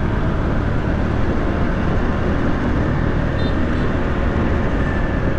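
Steady engine and road noise of a motor scooter riding through heavy city traffic.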